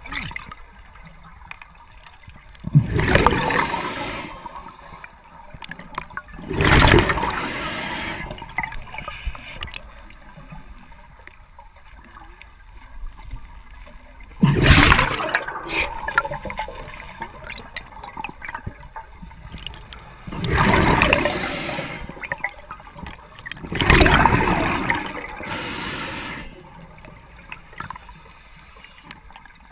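A diver's breathing heard underwater: five rushes of exhaled bubbles, each a second or two long, a few seconds apart, with a quieter water hiss between them.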